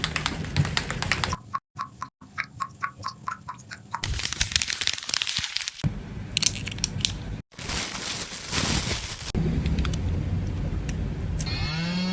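Tattoo machine buzzing in a series of short, abruptly cut clips: a crackly, rattling buzz over a low steady hum, with a stretch of rapid even clicking, and the pitch rising as the machine speeds up near the end.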